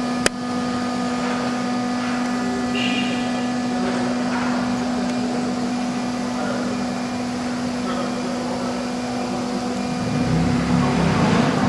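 CNC router machine running with a steady, even-pitched hum, and a sharp click just after the start. Near the end a low rumble swells as the machine moves.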